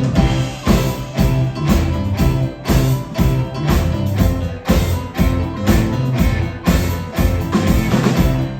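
Live rock band playing an instrumental stretch of a song: drums keep a steady beat under guitar and a sustained bass line.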